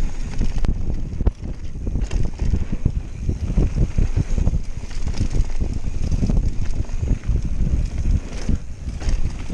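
Wind buffeting the microphone of a GoPro on a fast mountain-bike descent, over the rumble of tyres on a dirt trail and many short knocks as the full-suspension bike rattles over bumps.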